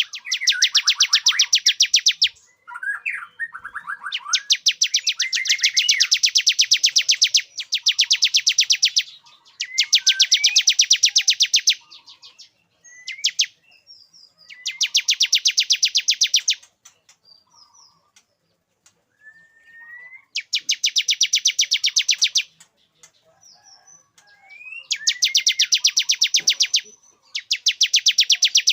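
Male bar-winged prinia (ciblek) singing: fast, rattling trills about two seconds long, repeated again and again with short gaps, and brief single chirps in between.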